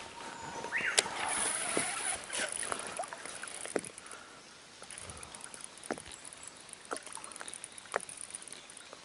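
Water splashing and lapping around a small inflatable boat, with scattered light clicks throughout.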